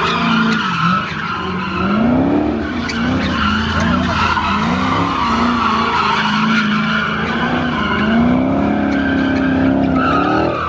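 Dodge Charger doing donuts: the engine revs rise and fall over and over while the rear tyres squeal steadily as they spin and slide.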